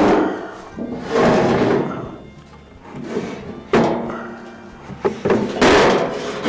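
Bumps and handling noise over background music.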